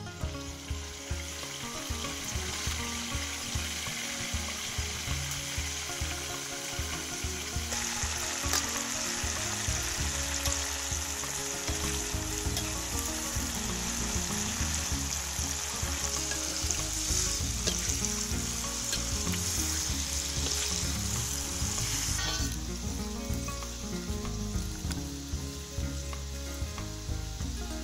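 Banded bullfrog pieces deep-frying in a wok of hot oil, sizzling steadily, with a metal ladle stirring and now and then clicking against the wok. The sizzle grows louder about eight seconds in and eases off again about five seconds before the end.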